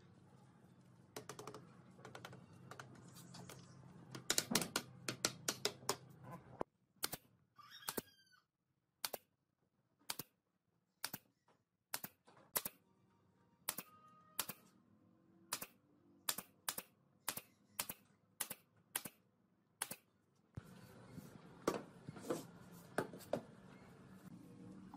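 Pneumatic brad nailer firing nails into pine seat slats, a long string of sharp shots roughly one to two a second, after a quicker flurry of clicks.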